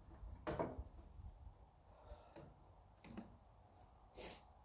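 Faint, scattered knocks and clunks from hands working on the tractor's radiator sheet metal, the loudest about half a second in, with a brief scraping hiss near the end.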